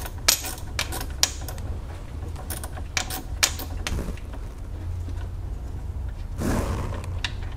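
Ratchet with a short Torx T25 socket clicking in short runs as the screw holding the radiator's coolant hose is backed out, the clicks stopping about three and a half seconds in. A low steady hum runs underneath, with a brief rustle near the end.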